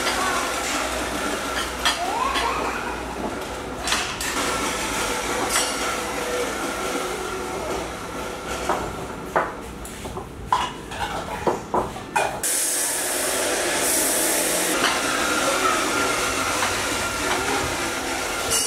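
Porcelain soup bowls clinking and knocking as they are set out and moved on a table, over a steady background rush. A short hiss comes about two-thirds of the way through.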